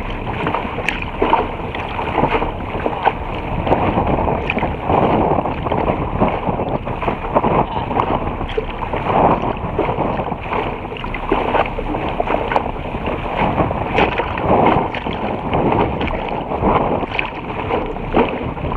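Water rushing and splashing against a sailing dinghy's bow as it planes along, with irregular surges of spray breaking over the bow.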